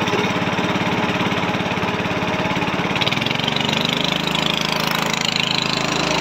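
A small boat's engine running steadily. Its note changes about three seconds in, with more hiss higher up.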